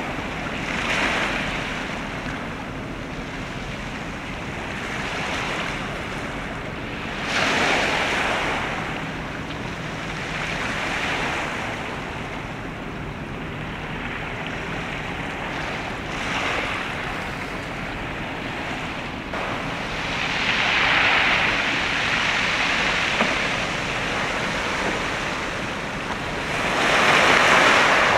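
Waves washing in, swelling and fading every few seconds, with wind on the microphone and a faint low steady hum underneath.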